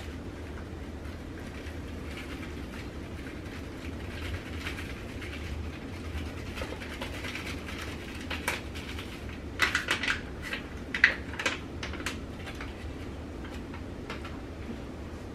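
Ground beef cooking in a pan on the stovetop with water and taco seasoning: a soft steady sizzle over a low hum. About ten seconds in there is a short run of sharp taps and clicks of a utensil or packet against the pan.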